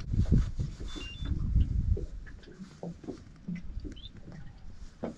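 A low rumble over the first two seconds, then scattered small knocks and clicks on the boat, with a short two-pitch electronic beep about a second in.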